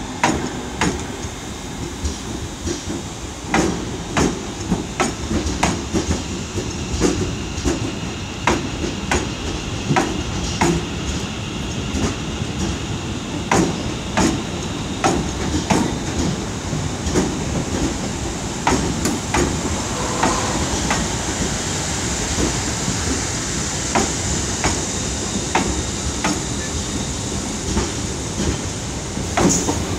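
ScotRail Class 314 electric multiple unit passing slowly along the platform. Its wheels click over rail joints and pointwork every half second to a second above a steady rolling rumble.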